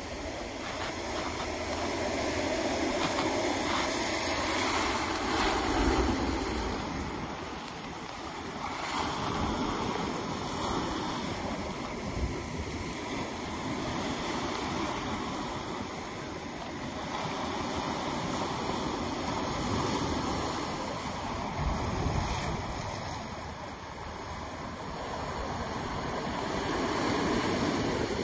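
Ocean surf breaking against shoreline rocks and washing back, the rushing noise swelling and easing every few seconds.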